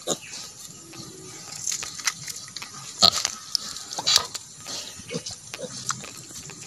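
Native black pig sow grunting, with short sharp rustles and clicks around her; the loudest come just after three and four seconds in.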